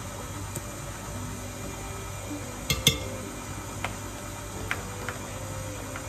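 Stand mixer running at low speed as a steady hum, with a handful of sharp clinks from a spoon knocking against a plastic tub and the glass mixing bowl as fermented cassava is scooped in; the loudest two clinks come close together about three seconds in.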